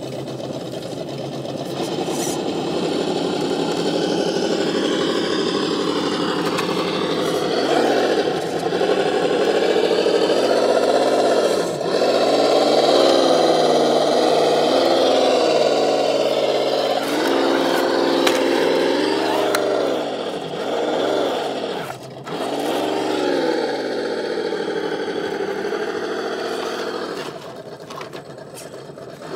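Electric motors and geartrains of RC scale crawlers whining as they climb over rock. The pitch rises and falls with the throttle, with a few brief dips.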